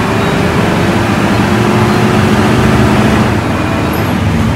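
Bus engine running steadily under way, with a dense rush of road noise over it; the engine note shifts a little about three seconds in.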